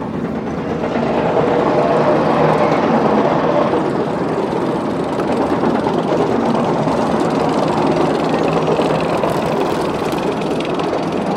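Roller coaster train being hauled up its chain lift hill: a steady mechanical clatter of the lift chain and track, with fine rapid ticking throughout, getting a little louder about a second in.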